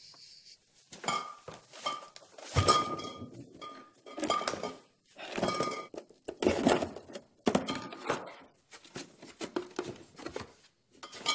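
Glass wine bottles knocking and clinking against each other and on cardboard boxes as they are handled and packed. A quick series of knocks, many with a short glassy ring, starting about a second in.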